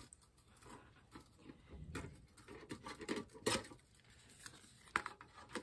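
Faint handling noises of a small tin can: scattered light taps and scrapes of fingers on thin metal, with a sharper click about three and a half seconds in and another near five seconds.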